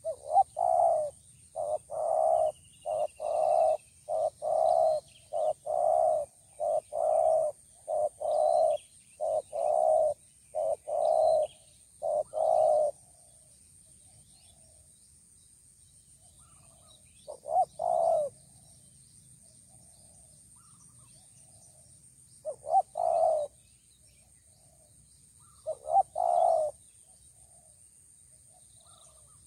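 Spotted doves cooing close by: a long run of short, evenly paced coos for about the first thirteen seconds, then three brief coo phrases spaced several seconds apart.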